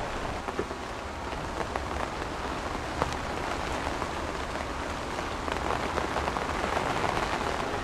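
Steady rain: an even hiss scattered with many small drop ticks, over a low rumble.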